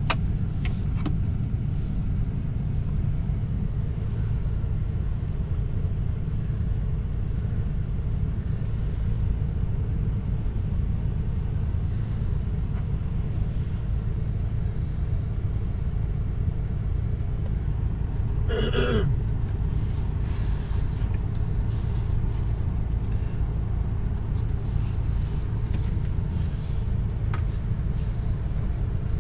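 Steady low rumble of a motorhome's engine idling, heard inside the cab while stopped in traffic. A brief squeal, falling in pitch, comes about two-thirds of the way through.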